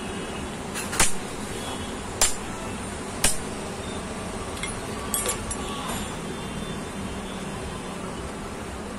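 Sharp metal-on-metal taps as a steel rod is struck to seat a newly made replacement bush in a Mahindra Scorpio AC blower motor's end plate. There are four strikes about a second apart, then a few lighter clinks about five to six seconds in, over a steady low hum.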